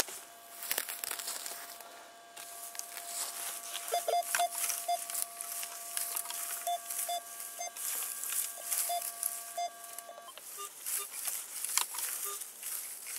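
Metal detector sounding a steady tone with short louder blips as its coil sweeps low over the ground. The tone cuts off about ten seconds in, and a few short higher beeps follow. Dry grass rustles and crackles against the coil.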